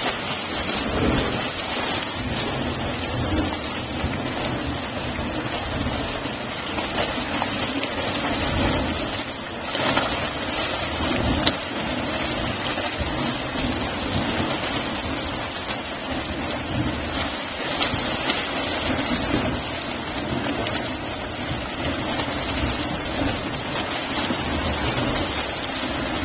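Hot spring churning inside a steaming cave: a steady rush of splashing, sloshing water with a low rumble, swelling and easing a little.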